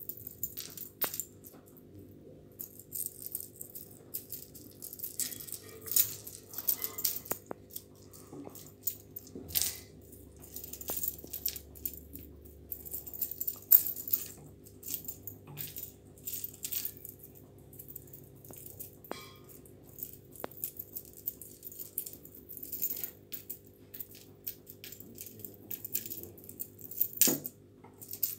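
Metal chain necklace and pendant jingling and clinking in irregular bursts as kittens bat at it and it taps on the tile floor.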